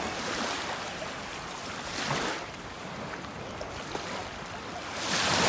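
Seawater washing and splashing in three surges, the last and loudest near the end.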